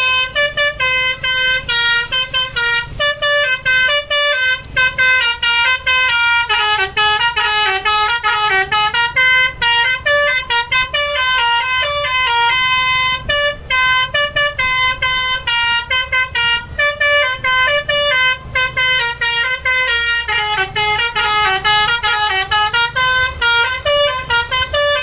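A bus's Basuri telolet musical air horn playing a long, fast melody of many short notes in rapid succession, loud and unbroken.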